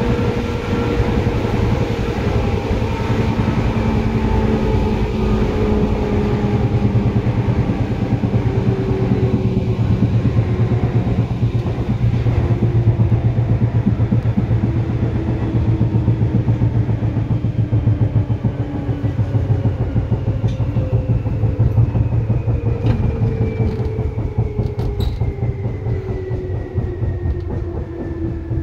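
Seibu 2000 series electric train running, heard from inside the car above the line breaker: a steady low rumble with wheel-on-rail clatter, and traction motor and gear whine falling slowly in pitch as the train slows. A few sharp clicks come near the end.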